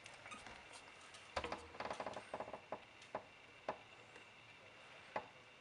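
Faint scuffling and small clicks of two young Boston terrier puppies shuffling on fleece bedding, busiest about a second and a half in, then a few single ticks.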